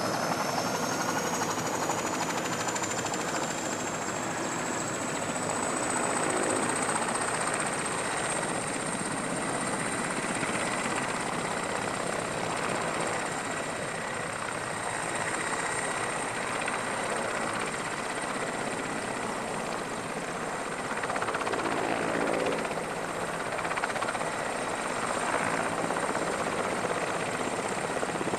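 Aircraft turbine engine spooling up: a high whine rises over the first several seconds and then holds steady over a constant rushing noise.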